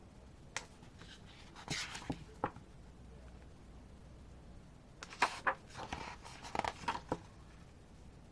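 Photocards and paper inserts from a K-pop album being handled by hand: a few short clicks and rustles in two bursts, the second about five seconds in and the busier.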